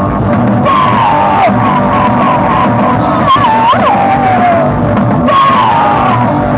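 Live punk blues rock: a woman singing over electric guitar and drums.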